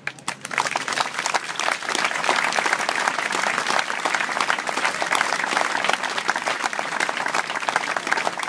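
Audience applauding, starting at once and swelling within the first second into steady clapping that goes on throughout.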